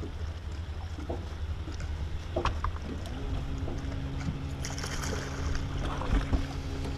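Low rumble of wind and water against a bass boat's hull, with a few light clicks. From about three seconds in, a steady low electric hum comes in, typical of a bow-mounted trolling motor running.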